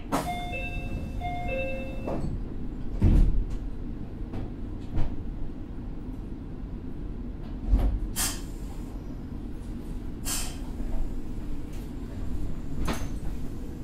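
Inside a Meitetsu 6000 series electric train at a station stop: a short two-tone electronic chime, then a heavy thud of the doors shutting about three seconds in. Several sharp bursts of air hiss follow over a low steady rumble.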